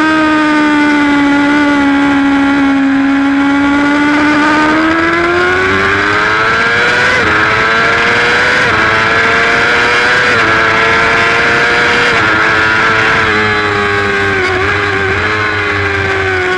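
Racing superbike engine heard onboard at high revs. The pitch sags, then climbs from about four seconds in with a few small breaks, then eases lower with a couple of short dips near the end.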